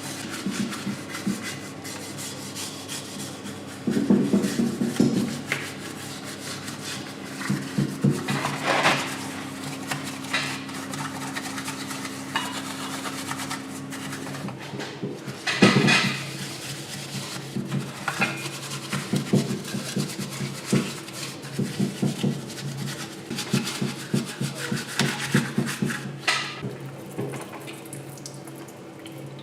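Small metal parts clinking and scraping as they are handled and scrubbed, with irregular knocks, over a low steady hum that stops about halfway through.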